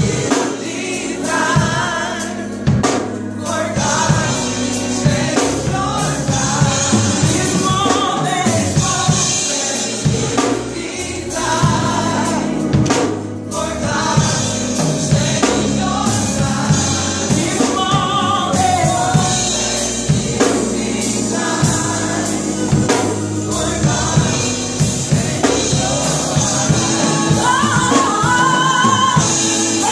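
Live gospel singing: a woman singing lead into a microphone with a group of backing singers, over instrumental accompaniment with drums and a bass line. Her held notes waver with vibrato.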